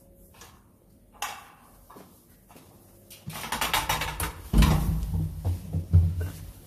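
Otis 2000H hydraulic elevator making mechanical noise: a single click about a second in, then loud rumbling and rattling for about three seconds with two hard clunks.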